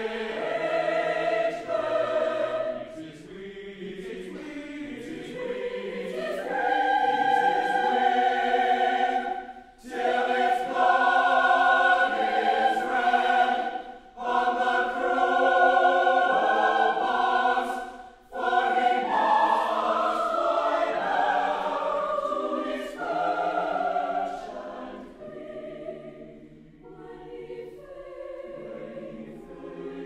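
University chorale singing slow, sustained choral chords. It swells loud through the middle with three brief breaks between phrases, then sings softly near the end.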